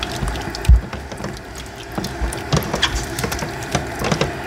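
A spoon clicking and knocking irregularly against a cooking pot while the cream is stirred into the beef stroganoff, with a heavier low thump about three quarters of a second in.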